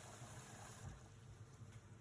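Near silence: a faint steady low hum under light hiss, the hiss dropping slightly just under a second in.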